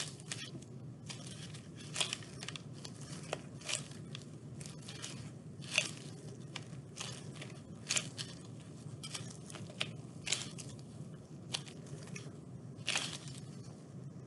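Blue nitrile-gloved hands kneading sticky polymer clay pieces into a ball: irregular crackles and clicks as the sticky clay and gloves pull apart.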